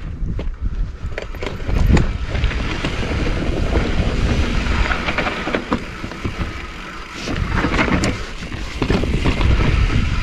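Mountain bike rolling over a rocky singletrack: tyres crunching on gravel and stone and the bike rattling in short irregular knocks, with wind buffeting the microphone.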